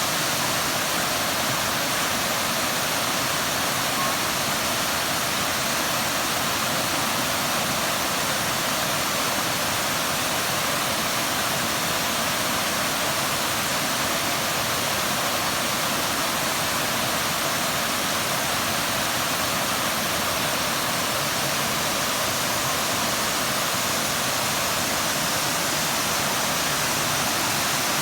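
Water rushing steadily, a constant even hiss with no breaks.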